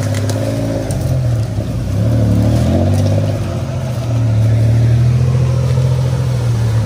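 Off-road 4x4 engine labouring as the vehicle drives through deep mud and water, the revs dipping and shifting a couple of times before holding a steady drone.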